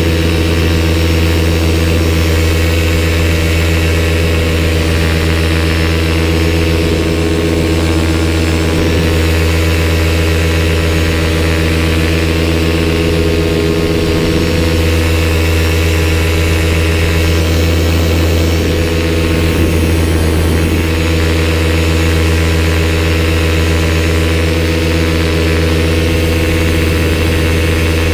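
Paramotor engine and propeller running steadily in cruising flight, a loud, even drone at one pitch, heard close up from the pilot's helmet.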